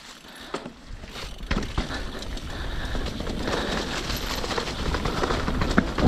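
Mountain bike rolling along a dirt trail: a rushing of tyres and air that grows steadily louder as it picks up speed, with several sharp knocks and rattles from the bike over the bumps.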